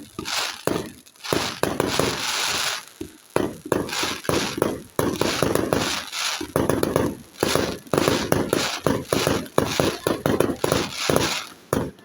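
Aerial fireworks bursting in rapid succession: a dense run of sharp bangs and crackles, with a thick patch of crackling about a second and a half in.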